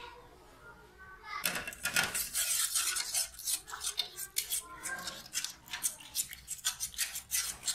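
Coil spring whisk beating milk and cheese in an aluminium saucepan, its wire coil scraping and clinking against the pan in a fast, even rhythm that starts about a second and a half in.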